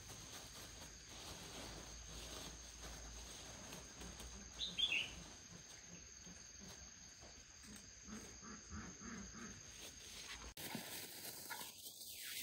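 Faint outdoor ambience of insects droning steadily, with one short bird chirp about five seconds in.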